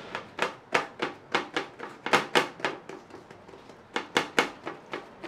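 A floured hand pressing and patting balls of sweet yeast dough flat on a greased baking tray: a quick series of short taps, about three or four a second, with a brief lull just past the middle.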